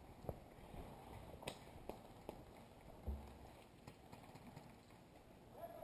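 Near silence, with a few faint, scattered clicks and one soft low thump about three seconds in.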